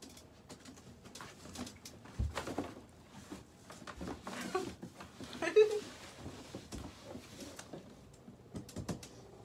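Scattered small clicks and knocks of things being handled, with a brief high-pitched sound about five and a half seconds in.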